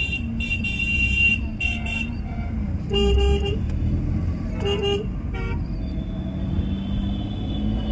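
Short horn toots over a steady low rumble of street noise: a few high-pitched toots in the first two seconds, a louder, lower blast about three seconds in, and two shorter toots around five seconds.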